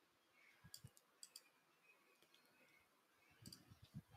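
Near silence with a few faint computer mouse clicks, mostly in quick pairs.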